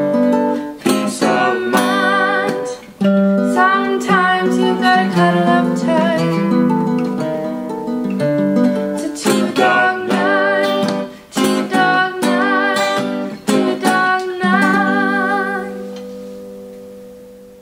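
Acoustic guitars strummed while a woman sings a melody with vibrato. Near the end the song closes on a final held chord that rings out and fades away.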